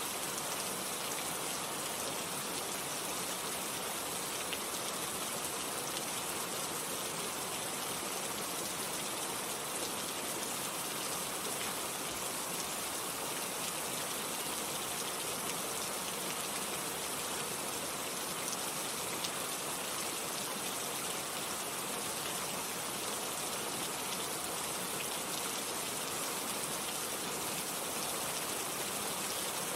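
Steady rain falling: a dense, even hiss of drops with the occasional single drop ticking out.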